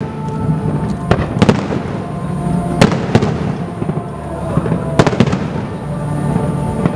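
Aerial firework shells bursting overhead, with sharp bangs coming in clusters of two or three, about every two seconds.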